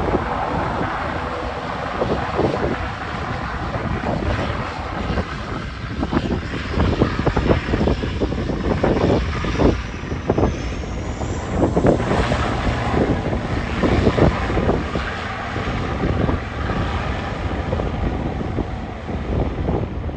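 Passenger airliner engines running as the plane passes, with a high whine that rises in pitch about halfway through. Strong gusts of wind buffet the microphone throughout.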